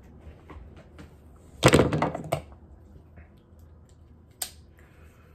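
Handling noise from a knife: a loud thunk about a second and a half in, then a single sharp click later, over a faint room background.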